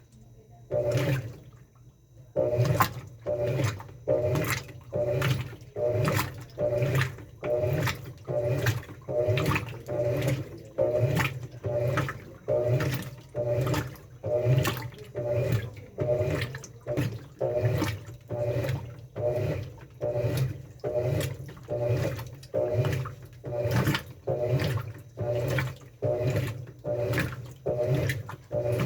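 Top-loading washing machine with a central agitator agitating a wash load: motor hum and water swishing in even strokes, about three every two seconds, settling into a steady rhythm a couple of seconds in.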